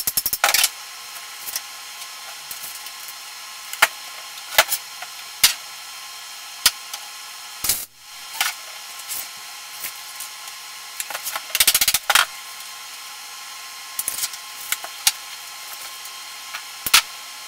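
MIG welder laying short tack welds on a sheet-steel fender patch panel: about ten brief crackling bursts a second or so apart, with a longer one near the end, over a steady hum.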